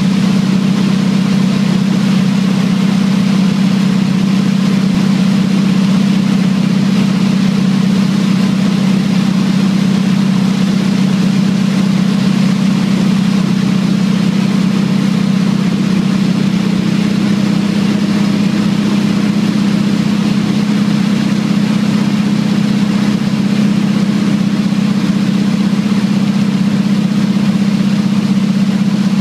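Small aircraft's piston engine and propeller droning steadily, heard from inside the cockpit as it flies low over water. It is a loud, even hum that holds the same pitch throughout.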